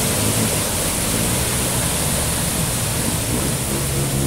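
Torrential rain pouring down onto a flooded street, with floodwater running: a steady hiss. A car engine runs low beneath it in the first second or so.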